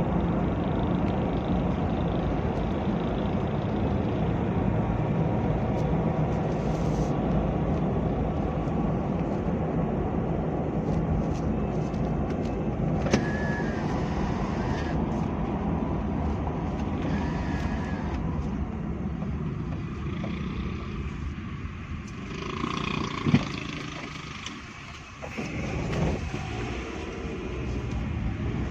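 Motor vehicle driving on the road: a steady rumble of engine and tyres. It thins out for a few seconds late on, with a sharp knock in the middle of that lull, then comes back. Two brief high beeps sound earlier.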